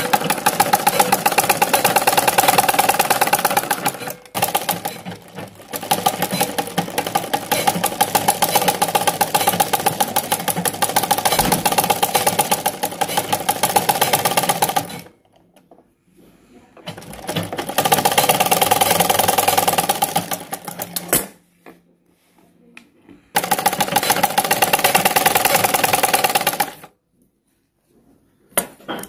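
Black domestic sewing machine stitching in fast, even runs of needle clatter: a long run with a brief stop about four seconds in, then two shorter runs, each after a short pause.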